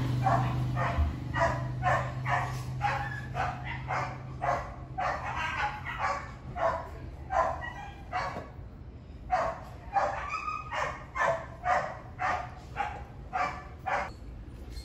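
An animal calling in short, evenly repeated cries, about two to three a second, with a brief break a little past halfway.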